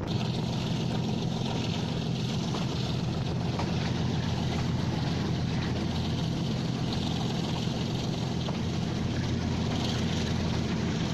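Passenger train running along the line, heard from inside the carriage as a steady, even rumble.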